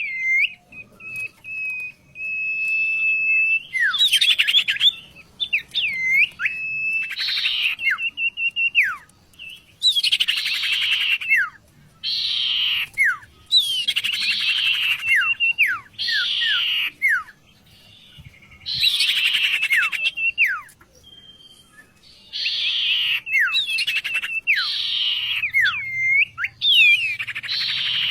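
A sirtu songbird singing: a long level whistle at first, then repeated short phrases of harsh, buzzy notes mixed with quick downward-slurred whistles, separated by brief pauses.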